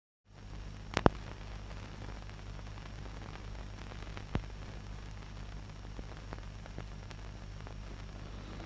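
Steady hiss and low hum of an old film print's soundtrack, with scattered clicks and pops; a sharp double pop comes about a second in and another just past four seconds.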